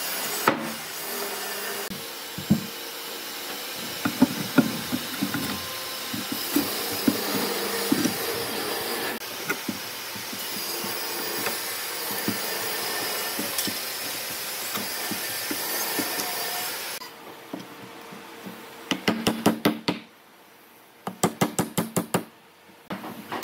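Scattered knocks of steel hand tools on old hardwood beams over a steady workshop noise, as rusty nails are worked out of salvaged boat timber with a bent-rebar nail puller. The steady noise drops away about two thirds of the way in, and then come two short bursts of rapid knocking.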